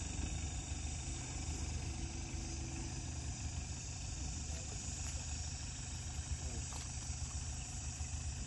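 Steady low hum of an engine running at idle, even and unchanging throughout.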